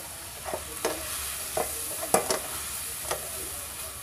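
Stir-fry of chicken, bell pepper and cashews sizzling in a frying pan, with soy sauce just added, while a spatula stirs it, scraping and knocking against the pan about seven times; the loudest knock comes about two seconds in.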